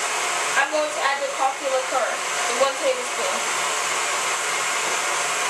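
KitchenAid stand mixer running steadily, whipping heavy cream with sugar and vanilla in a stainless steel bowl; the cream is nearly at the stiff peak stage.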